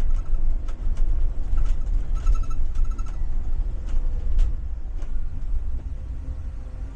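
Blue Bird Vision school bus driving, heard from the driver's seat: low rumble of its Ford 7.3 V8 and the road, with frequent short rattles and clicks from the bus body. The rumble gets quieter over the last couple of seconds.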